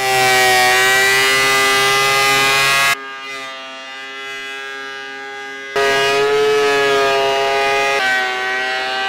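Benchtop thickness planer running as red cedar boards are fed through it, a loud steady high-pitched whine with a rushing noise under it. It drops to a fainter level for about three seconds in the middle, then comes back loud.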